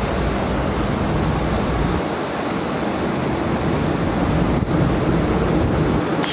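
Steady, loud machine noise with a constant high-pitched whine, dipping briefly about four and a half seconds in, and a sharp click near the end.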